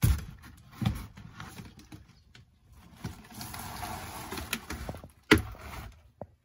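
Rotten, water-damaged interior wall paneling being pried and torn off the cabover framing. Sharp cracks at the start and about a second in, a stretch of ripping and crumpling, and a loud knock a little after five seconds. The wood is rotten, so it comes away easily.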